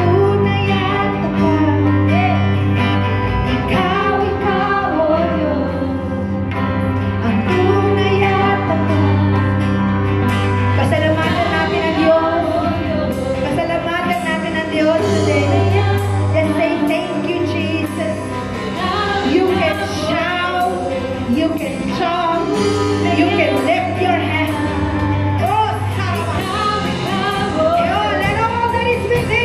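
Several women singing a Filipino worship song into microphones over a live band, with a steady bass line underneath; the drums and cymbals get busier about ten seconds in.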